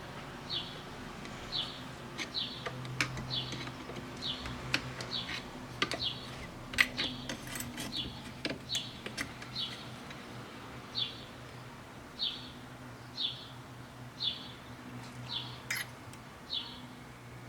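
A bird chirping over and over, a short high chirp about once a second, with a cluster of sharp clicks and taps in the middle.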